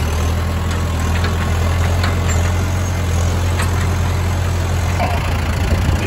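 John Deere loader tractor's diesel engine running steadily, heard from the operator's seat, as the tractor drives with a round bale on the front loader. A few light clicks and rattles sound over the engine.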